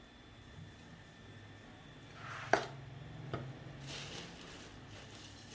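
Kitchen handling sounds while hot water is worked into maize flour: one sharp knock about two and a half seconds in, a lighter tap shortly after, and soft rustling near the end, over a low steady hum.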